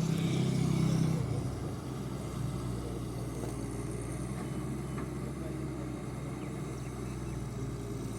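Large excavator's diesel engine running steadily, louder for the first second or so and then settling to an even level.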